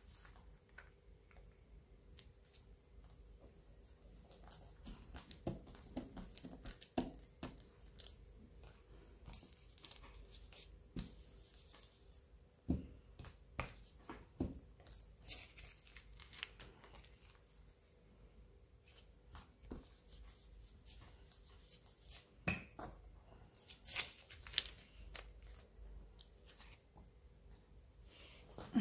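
Quiet crinkling of a clear plastic craft sheet and rustling of drawing paper, with scattered soft taps and clicks as ink is pressed and dabbed onto the card by hand.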